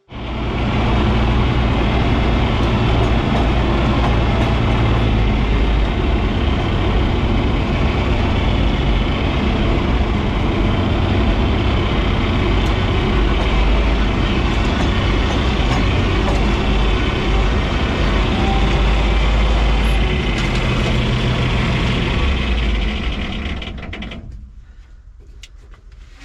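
Loud, steady engine and machinery running, with a deep rumble, dying down about 24 seconds in.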